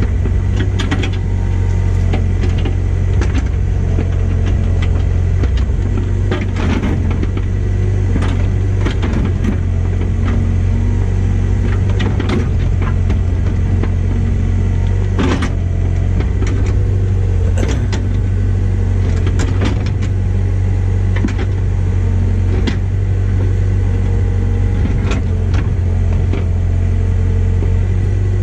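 Excavator's diesel engine running steadily with a deep rumble, with scattered sharp knocks and cracks over it.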